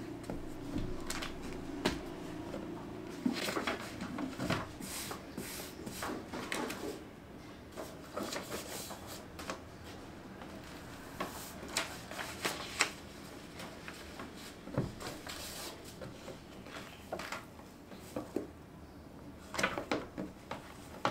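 Hardcover books and journals being handled and set down on a wooden table: scattered light knocks and taps with paper rustling. Near the end, a bound book is opened and its pages turned, a quick run of sharper paper sounds.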